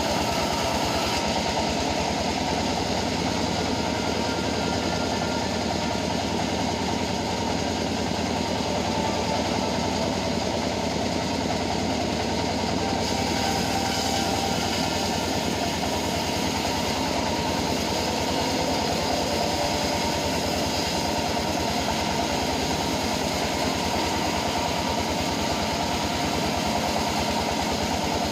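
Homemade band sawmill running steadily, a loud, even machine drone that does not change.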